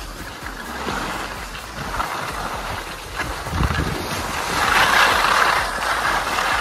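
Skis scraping and carving over packed snow with wind rushing over the microphone during a downhill run; the scraping rush swells loudest about five seconds in.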